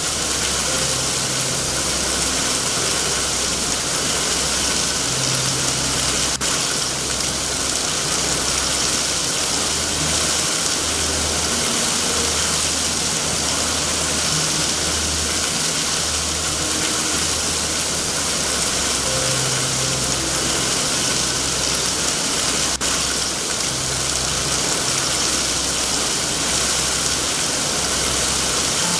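Steady rain hissing, with a low uneven rumble beneath it and two faint sharp clicks, one about six seconds in and one near the end.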